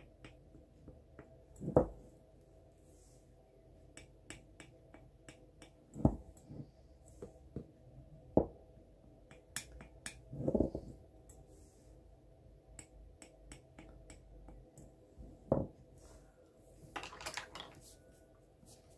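Scattered light clicks and a few soft knocks from a glass tumbler and paintbrush being handled on a table while paint is dabbed onto the glass.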